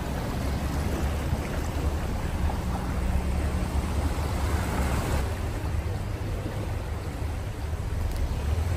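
Car driving through deep floodwater, heard from inside the cabin: a steady low engine and road rumble under a continuous wash and swish of water pushed aside by the car.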